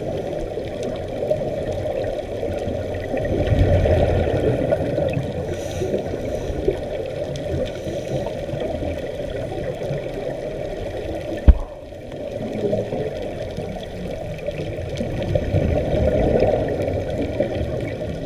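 Scuba divers' exhaled bubbles gurgling, muffled underwater, swelling twice as breaths go out. One sharp knock about eleven seconds in.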